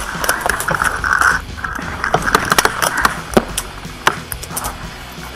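Paintball markers firing: an irregular run of sharp pops and cracks, denser in the first three seconds and thinning out toward the end.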